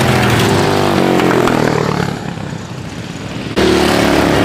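Racing lawnmower engines running hard on the track, a pitch sliding downward as one passes. The sound drops back about two seconds in, then comes back suddenly loud near the end.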